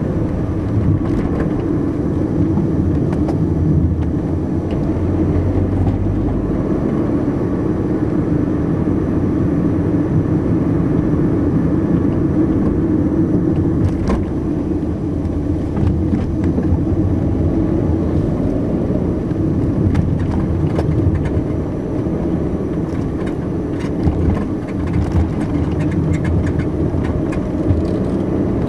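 Car driving along a country road and into a village: steady engine and tyre rumble, with a few faint clicks.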